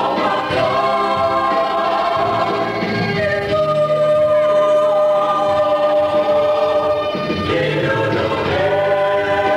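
Mixed choir of men's and women's voices singing, with a long note held in the middle.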